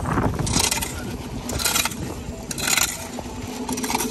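Shovels scraping and scooping through a dry cement-and-gravel mix on hard ground, as concrete is mixed by hand, in about three separate strokes a second or so apart.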